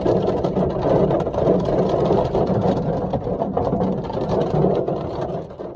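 Heavy storm precipitation drumming on hard surfaces, with many sharp hits scattered through a dense hiss, over a steady low hum; it fades near the end.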